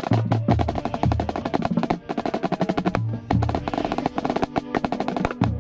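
Marching band playing, heard from inside the drum line: rapid sharp strokes and rolls from a marching drum right at the microphone over sustained brass chords, with low bass-drum hits coming and going.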